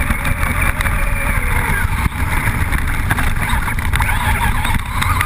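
Onboard sound of a Traxxas Rustler VXL brushless electric RC truck driving over rough grass and gravel. The motor whine rises and falls with the throttle over heavy wind buffeting on the camera, with rattling knocks as the chassis hits bumps.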